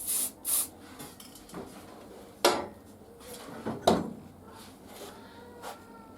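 Wood and metal workshop parts being handled and fitted at a lathe: two short scraping rubs at the start, then two sharp knocks about two and a half and four seconds in, and a faint scrape near the end.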